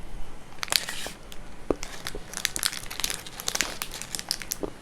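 Dark chocolate bar's wrapper crinkling in the hands as it is opened: irregular crackles and rustles.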